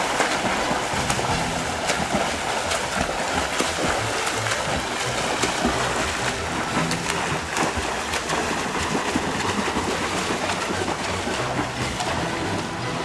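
Continuous splashing and churning water from swimmers racing down a pool, over background music.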